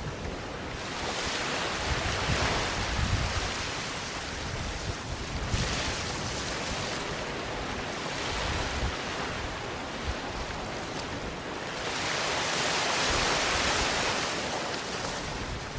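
Waves washing up onto a sandy beach, the hiss of the surf swelling and falling back three times: about a second in, around six seconds, and longest near the end. Low wind rumble on the microphone runs underneath.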